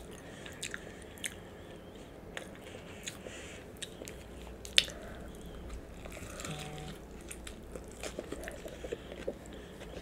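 A person biting into and chewing a cheddar cheeseburger, heard as quiet close-up eating sounds: chewing with scattered small mouth clicks, one sharper click just before five seconds in.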